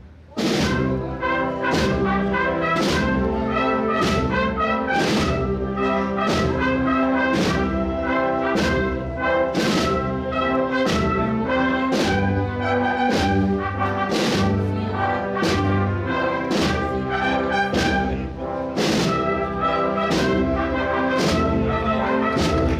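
A procession brass band playing a processional march, with brass carrying the melody over steady drumbeats about one to two a second.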